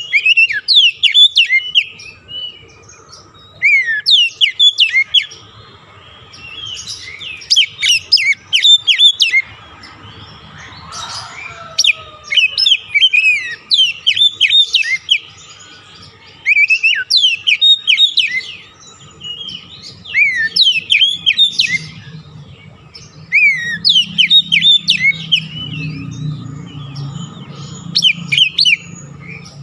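Songbird chirping in quick groups of high, sweeping notes, a burst every couple of seconds. It is a lure and singing-stimulant birdsong track meant to set a kacer (oriental magpie-robin) singing.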